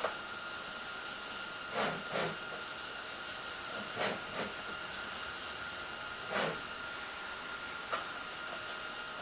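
Steady hiss with a faint high whine, broken by a handful of short knocks.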